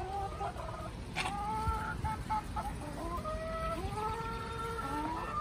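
Several hens clucking, with long drawn-out calls, some rising in pitch, overlapping one another.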